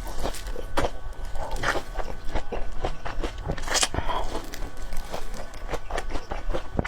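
A person eating close to the microphone: chewing and mouth sounds, an uneven run of quick wet clicks and smacks, with one sharper smack or slurp a little before the middle.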